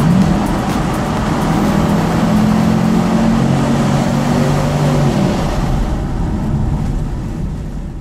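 Road and engine noise of a car driving through a long highway tunnel, heard from inside the car, with a low droning hum for the first five seconds. It fades away near the end.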